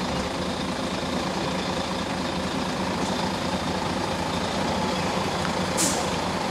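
Semi-truck's diesel engine running steadily at low revs as it backs a hydraulic boat trailer under a sailboat's hull, with a short hiss near the end.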